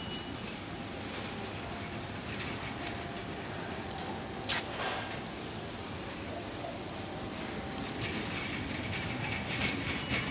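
Wire shopping cart pushed across a supermarket floor, its wheels and basket rattling steadily over the store's background noise, with a sharp metal clank about four and a half seconds in and a few more near the end.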